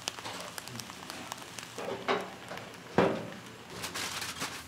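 Foil-wrapped seafood packets sizzling and crackling on a gas grill, a steady fine crackle of small pops. A short louder sound about three seconds in.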